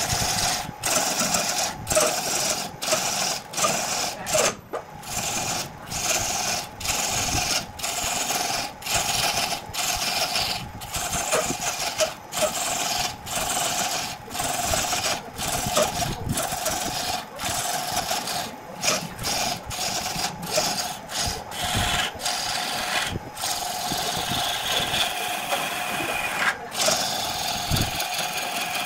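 Wood lathe spinning a wood blank while a hand-held gouge cuts into it, a steady hum under a rough tearing hiss as shavings peel off. The cutting starts at the opening and is broken by short regular gaps, a little more than one a second.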